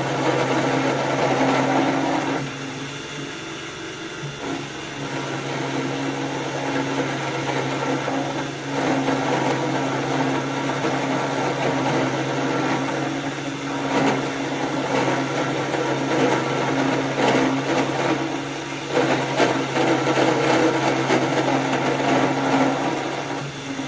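Cheap 775 DC motor spindle running a 10 mm end mill, cutting a slot across the fins of a small engine cylinder. A steady motor hum sits under the cutting noise, which drops back for a couple of seconds about two seconds in and then rises and falls as the cut goes on.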